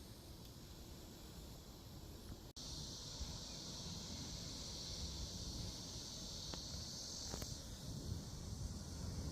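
Insects droning steadily in a high, even hiss that comes in after a brief break about two and a half seconds in and stops about five seconds later, over a low rumble of outdoor background noise.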